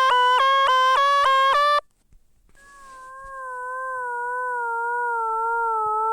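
Synthesized tones from the Desmos graphing calculator: a fast pulsing tone that hops up and down in pitch cuts off suddenly just under two seconds in. After a brief silence, a wavering tone fades in and slowly drifts down in pitch.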